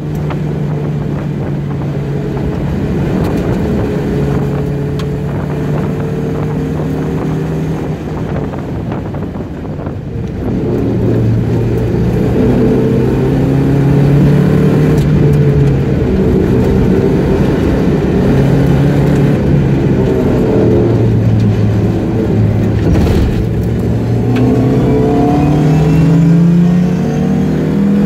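Mazda Miata's four-cylinder engine heard from inside the cabin, driven hard on track. It runs steadily at first, eases off and quietens about eight seconds in for a corner, then pulls hard again with its pitch climbing, dropping briefly about 23 seconds in, and climbing again.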